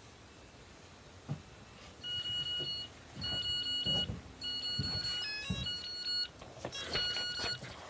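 FPV quadcopter's beeper sounding in repeated long, steady high beeps, about one a second, with a short run of stepped tones midway. The drone is sitting still on the ground after landing or crashing. Low knocks and rustles sound under the beeps.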